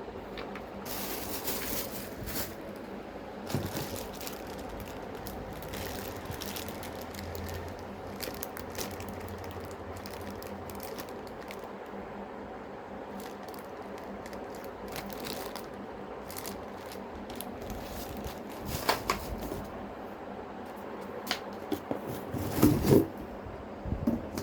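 Plastic vacuum-cleaner parts and packaging being handled: scattered crinkling and light plastic clicks and knocks over a steady low hum, with a few louder knocks near the end.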